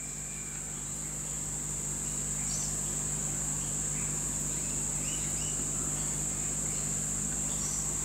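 Steady high-pitched hiss over a low hum, with a few faint light taps from hands pressing a small bracket against a machine casting.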